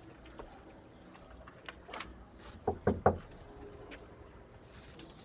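Faint background with scattered small clicks and a quick run of three soft thumps about three seconds in.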